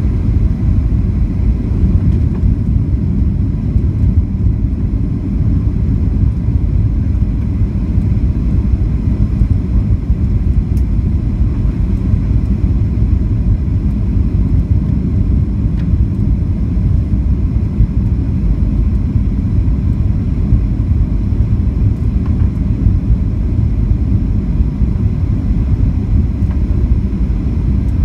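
Cabin noise of a Boeing 737-800 on approach: a steady low rumble of its CFM56 engines and airflow, heard from a window seat over the wing.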